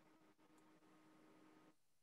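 Near silence: faint room tone with a faint steady hum.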